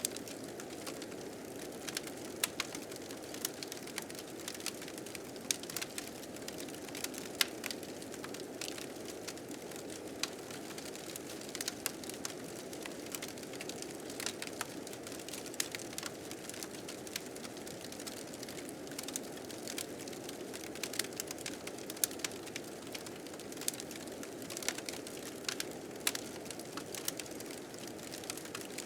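A wood fire crackling, with irregular sharp pops, over the steady low rushing of blizzard wind.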